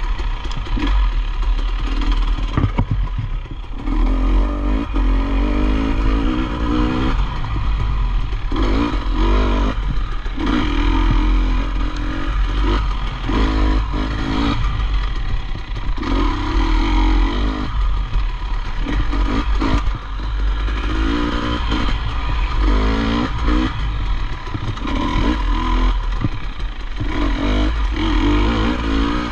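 Dirt bike engine revving up and down over and over as it is ridden over rough ground, with clattering from the bike and a steady low rumble underneath.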